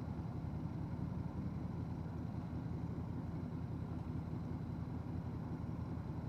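Honda Transalp 750's 755 cc parallel-twin engine running steadily at cruise, with some wind and road noise.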